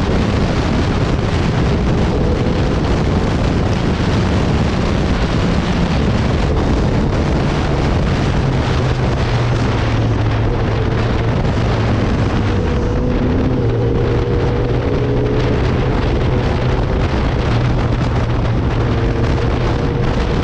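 Motorcycle engine running at road speed, buried under heavy wind noise on the microphone, its engine note stepping up and down in pitch a few times.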